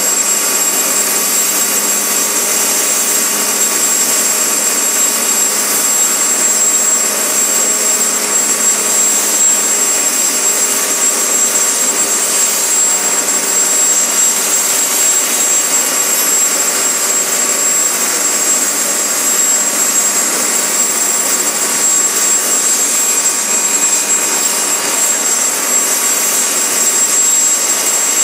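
Mosquito XET ultralight helicopter's small turbine engine running steadily, a constant high whine over a steady rush of noise with no change in pitch.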